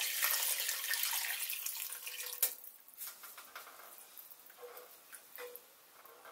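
Water poured from a glass measuring jug into a pan of masala, splashing steadily for about two and a half seconds. A sharp knock follows, then a wooden spatula quietly stirring the watery mixture in the pan.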